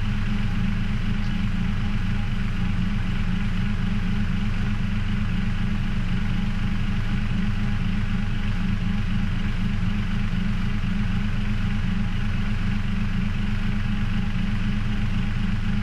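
A heavy engine idling steadily: a loud, low, even drone with a fine regular pulse that does not change.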